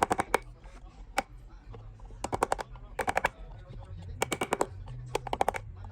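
Short bursts of rapid, sharp taps, four to six quick strikes in each burst, repeating roughly once a second, over a low steady hum.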